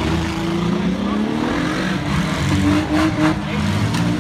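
Several demolition derby cars' engines revving at once, their pitches rising and falling over one another. A few sharp bangs come about three seconds in.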